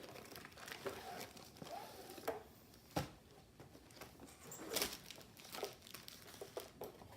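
Packaging crinkling and rustling as a diamond painting kit is unpacked by hand, with a sharp click about three seconds in and a louder rustle near five seconds.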